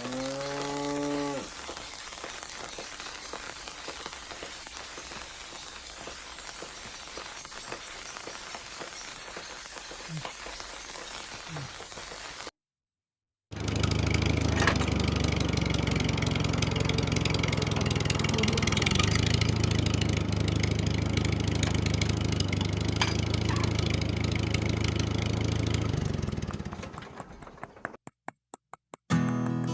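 A cow's moo trails off, followed by a steady, rain-like hiss. After a sudden break, a loud steady low drone takes over; it fades and stutters out near the end.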